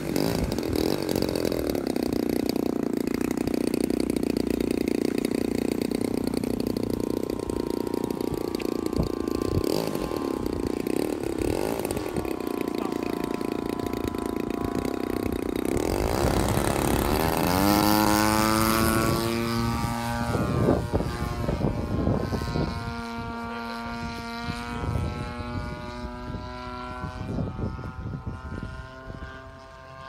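Large-scale radio-controlled model airplane's engine running steadily at low throttle, then opened up with a rising pitch about sixteen seconds in for the takeoff run. It holds a steady drone that fades as the plane climbs away.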